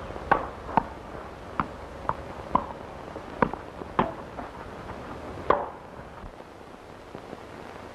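A tennis rally: a ball struck by rackets and bouncing on the court, making about eight sharp pops half a second to a second apart that stop after about five and a half seconds. Underneath is the steady hiss of an old film soundtrack.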